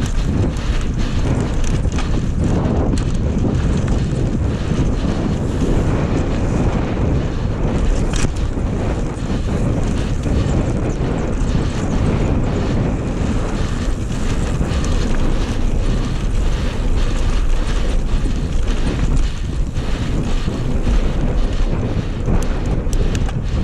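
Strong wind buffeting the microphone while riding at speed: a loud, steady, blustering rumble with a few scattered ticks.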